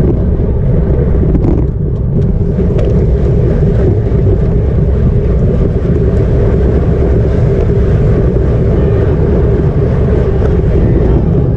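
Loud, steady wind rumble on the microphone of a bike-mounted action camera, from riding at racing speed on a road bike.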